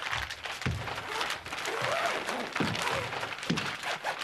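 Busy scene audio from a TV drama: clattering, knocking and rustling with faint, indistinct voices.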